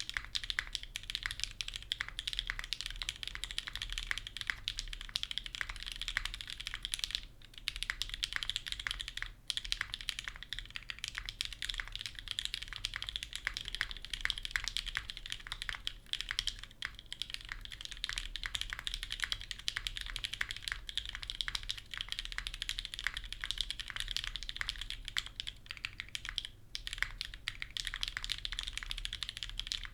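Continuous typing on a custom mechanical keyboard with lubed, filmed NK Cream linear switches on a polycarbonate plate, GMK keycaps and no foam: a dense stream of keystroke clacks, broken by a few brief pauses.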